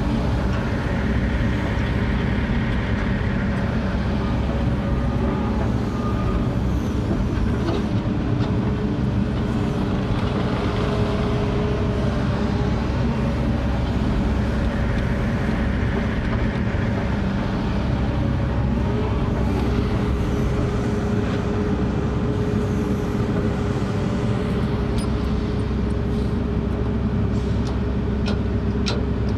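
Case 145D zero-swing excavator's diesel engine running steadily, heard from inside its cab, with the hydraulics whining and changing pitch as the boom swings and the bucket dumps. A few light clicks near the end.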